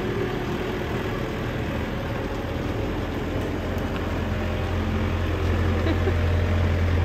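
Merlo Panoramic P26.6 Plus telehandler's diesel engine running as the machine drives past, a steady low drone that grows louder about five seconds in.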